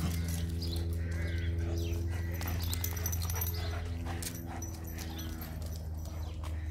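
Greyhounds playing on concrete, their paws pattering and scuffling in quick uneven clicks, over a steady low hum. Faint bird chirps can be heard now and then.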